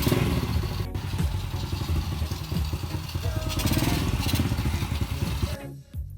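Restored Honda motorcycle engine running with an uneven low exhaust pulse. About five and a half seconds in, the engine sound cuts off abruptly and music with a beat takes over.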